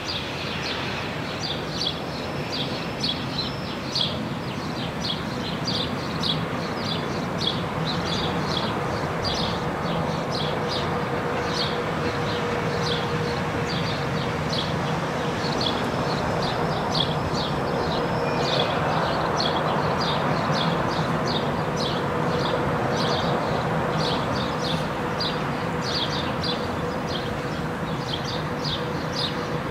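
A DB class 111 electric locomotive hauling a train, heard as a steady rushing noise with a faint hum that swells a little around the middle. Short high chirps repeat steadily, about two or three a second, throughout.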